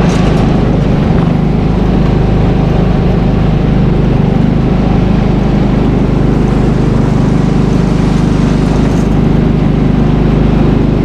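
Vehicle engine running steadily at an even pitch.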